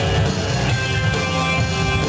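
Loud rock music with a steady beat and guitar, playing over the stage speakers for a dance routine.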